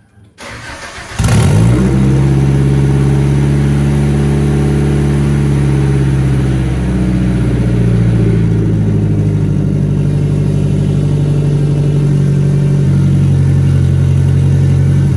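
Nissan 240SX engine starting and then idling steadily through a muffler-less ISR single exhaust, very loud. The exhaust still has leaks at its joints.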